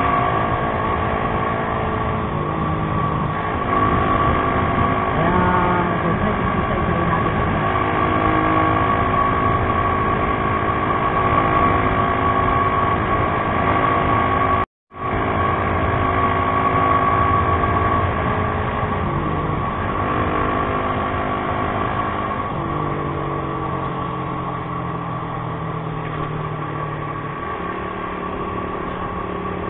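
Motorcycle engine running while riding in traffic, with a steady high whine over the engine note. The sound cuts out completely for a split second about halfway through.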